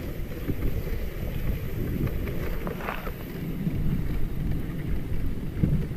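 Dogsled running along a packed snow trail: a steady low rumble of the runners over the snow, with wind buffeting the microphone.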